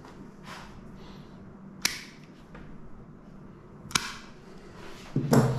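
Dog nail clippers snapping through a dog's toenails: two sharp clicks about two seconds apart, with a short low sound near the end.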